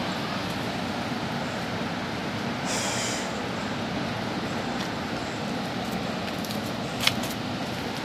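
Steady rush of falling water from Chitrakoot Falls, with a short hiss about three seconds in and a sharp click near the end.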